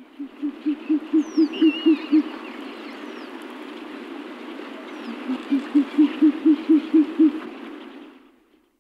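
An owl hooting in two rapid series of deep hoots, about four a second, each run of roughly ten notes growing louder. The second series comes about five seconds in.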